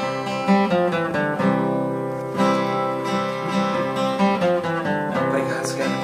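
Acoustic guitar played as a song's introduction, strummed chords changing every second or so.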